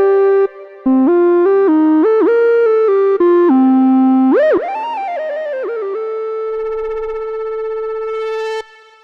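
Moog Subsequent 25 analog synthesizer playing a bright lead line, one note at a time: quick stepping notes with a short gap about half a second in, then a wide swoop up in pitch and back down around the middle. It settles on a long held note that stops shortly before the end and fades out.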